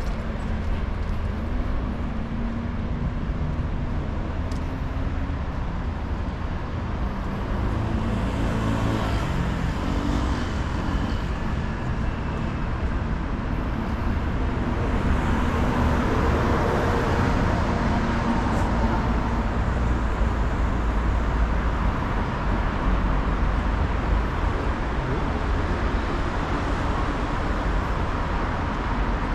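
Busy city street ambience: a steady rumble of road traffic, growing louder as vehicles pass about halfway through, with a few voices of passers-by briefly about a third of the way in.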